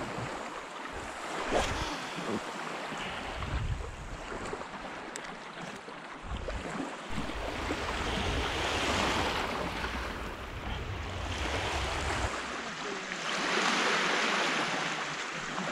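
Small lake waves washing onto a sand beach, swelling louder twice in the second half, with wind buffeting the microphone.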